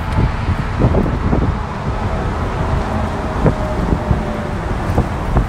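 Wind buffeting the microphone: a low, rushing rumble that surges unevenly in gusts.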